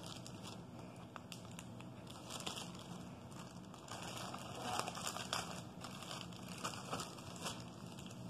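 Thin clear plastic wrapping crinkling in irregular bursts as it is handled and opened by hand, with the loudest rustles about halfway through.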